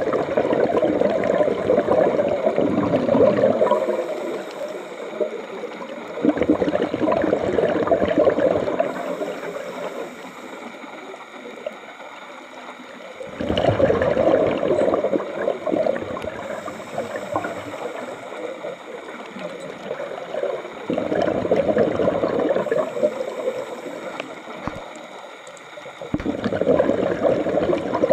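Scuba diver breathing through a regulator: exhaled bubbles gurgle out in five bursts of about two to three seconds, one about every seven seconds. Between them comes a fainter high hiss of each inhale.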